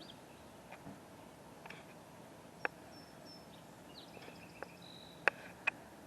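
Quiet outdoor construction-site background with a few scattered sharp knocks, the two loudest close together near the end, and brief faint bird chirps.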